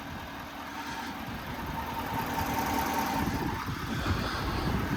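A diesel truck engine, plausibly the Ford F550's 6.7-litre Power Stroke V8, idling with a steady low rumble that slowly grows louder.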